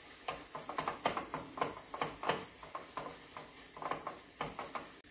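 Grated quince simmering in butter and pekmez (fruit molasses) in a pan, the thick mixture bubbling with irregular small pops, several a second.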